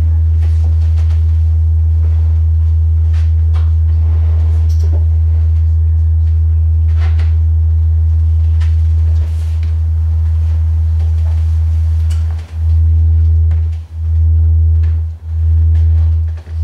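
Deep, loud sine-wave oscillator drone: one low steady tone with fainter higher tones above it. About three quarters of the way in, it begins pulsing on and off, cutting out briefly about every 1.3 seconds.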